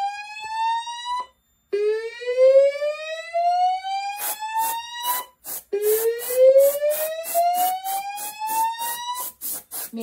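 Notifier DVC voice-evacuation system sounding the Notifier slow whoop alarm tone through its speakers: repeated rising whoops, each climbing steadily for about three and a half seconds with a short break between, the sign that the fire alarm panel is in alarm after a smoke detector was tripped. From about four seconds in, a fast run of short spurts from an aerosol smoke-test can sprayed at the detector joins the whoops.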